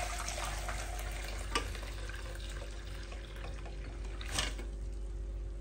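Water poured from a metal pot through a fine mesh strainer into a saucepan, draining soaked vermicelli: a steady splashing pour that slowly thins out, with two light knocks.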